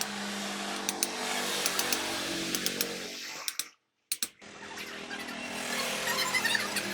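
A small motor running steadily with a buzzing tone and scattered clicks. It breaks off for a moment about halfway through, then runs again.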